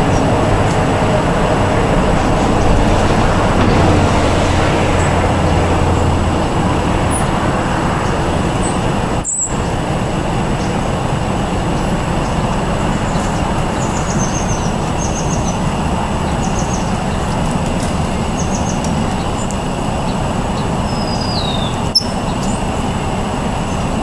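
Steady road traffic noise, with a low engine hum in the first few seconds. Faint short bird chirps come through about halfway, and a brief falling whistle near the end.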